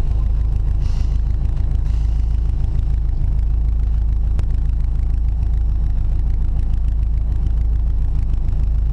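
Subaru Impreza rally car's flat-four engine idling steadily with a low, even rumble, heard from inside the cabin while the car stands still.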